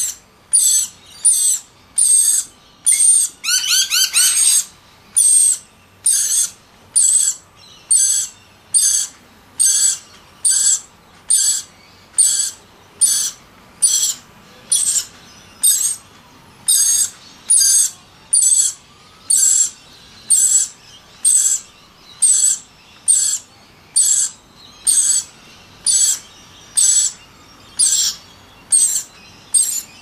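Rainbow lorikeets calling: short, high-pitched squawks repeated evenly a little under twice a second, typical food-begging while one is fed beak to beak. About four seconds in there is a brief rapid chattering trill.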